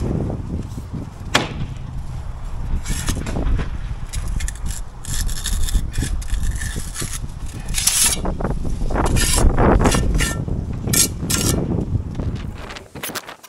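A trowel scraping and knocking against concrete blocks and mortar in short, irregular strokes, over wind rumbling on the microphone.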